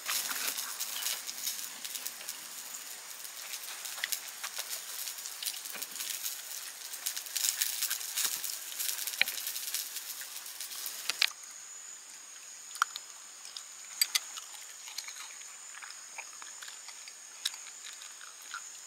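A dense light patter of many small clicks, which cuts off suddenly about eleven seconds in. Then a Shiba Inu eats kibble from a ceramic bowl: scattered sharp crunches of chewing over a faint steady high whine.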